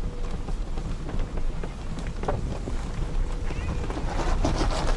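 A vehicle driving slowly over a rutted dirt track: a steady low rumble of engine and tyres, with scattered knocks and rattles from the bumps.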